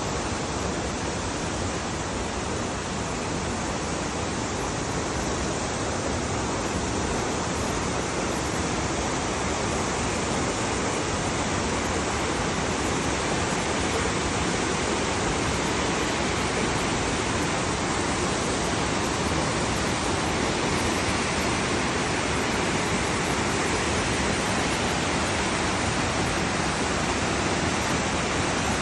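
Whangarei Falls waterfall: water falling and splashing in a steady, unbroken rush.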